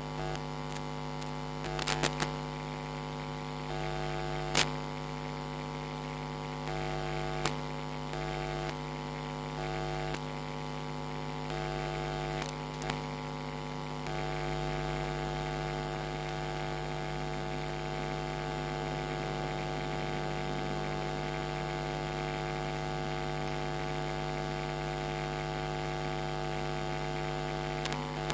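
Steady electrical mains hum with a stack of overtones, broken by a few short clicks and taps.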